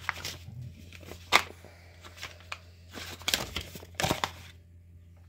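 Paper instruction sheets rustling and crinkling as they are handled and flipped by hand, in several irregular crackles, the sharpest about a second and a half in.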